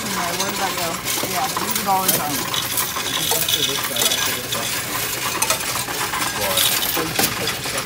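Loose coins, mostly pennies, clattering in a Coinstar coin-counting machine as they are pushed by hand from the tray into its intake and counted, a steady dense rattle of metal on metal.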